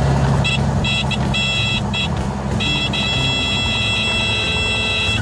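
Light single-engine propeller plane's piston engine running at power on the takeoff roll, a steady low drone. Over it a high-pitched warning tone sounds in short broken stretches from about half a second in, then holds steady for the last two and a half seconds.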